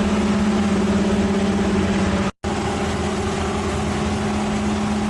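Engine of a heavy machine running steadily with a constant hum. The sound cuts out for a moment just over two seconds in, then resumes unchanged.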